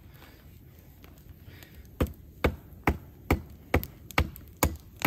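Steady, evenly spaced knocking blows on wood, a little over two a second, starting about two seconds in.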